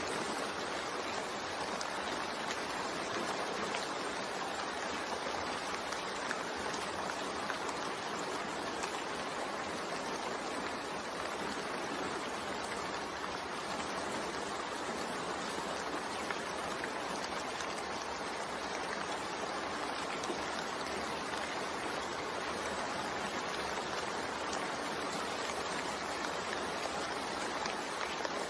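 Steady rain falling: an even hiss of water with faint scattered drop ticks.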